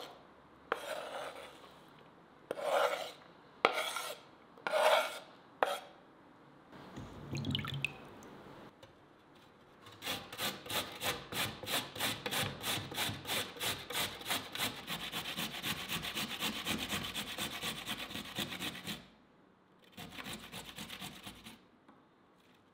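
Vegetable being grated by hand on a grater: after a few separate strokes, a fast, even run of grating strokes, about four or five a second, that stops a few seconds before the end.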